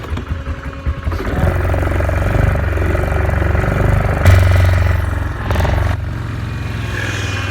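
Yamaha Grizzly 450 ATV's single-cylinder four-stroke engine revving up as it pulls away about a second in, loudest a little past four seconds, then dropping back to a steady idle about six seconds in.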